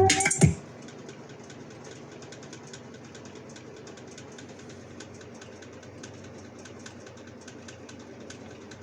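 Music through small powered speakers cuts off about half a second in, leaving a steady low hum and hiss with faint rapid ticking for the rest.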